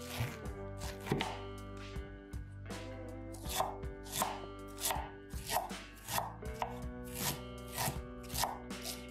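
Knife chopping vegetables on a cutting board in steady strokes, about one and a half a second, over background music.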